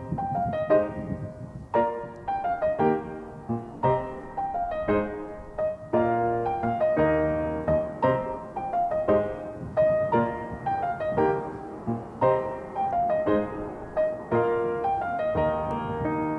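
Background piano music: a melody of struck notes over chords, each note fading after it is played, at a gentle steady pace.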